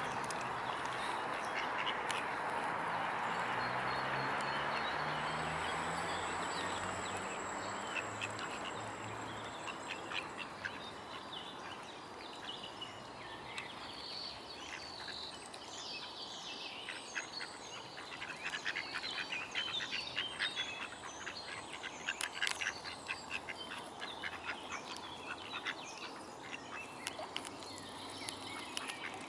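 Water sloshing and dripping as mute swans feed with their heads under the surface. A steady hiss fills the first few seconds, and from about halfway there are many quick small splashy clicks.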